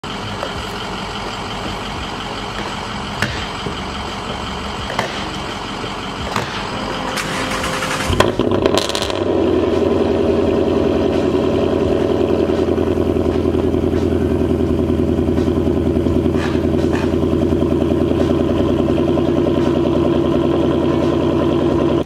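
Ford Mustang GT's 5.0 V8 cold-started: it cranks and fires about eight seconds in with a loud flare, then settles into a steady idle.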